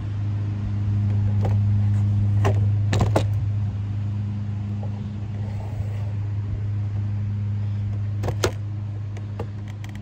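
A steady low machine hum from a running motor, with a few sharp metallic clicks and clinks: two or three close together about three seconds in, and a pair near the end.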